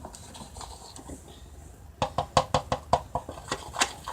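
A utensil clicking and scraping against a bowl while mousse is stirred into toothpaste slime. It is soft at first, then a quick, irregular run of sharp clicks starts about halfway through.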